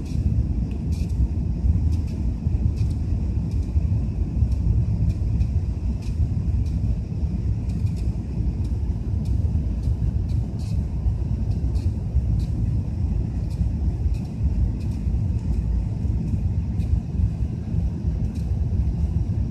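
Steady low rumble of engine and airflow noise inside the cabin of an Airbus A380-800 climbing out after takeoff, with faint light ticks now and then.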